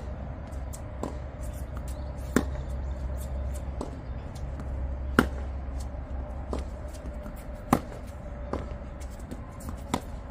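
Tennis rally on a hard court: sharp pops of racket strings hitting the ball about every two and a half seconds, with quieter ball bounces on the court between the strokes, over a steady low hum.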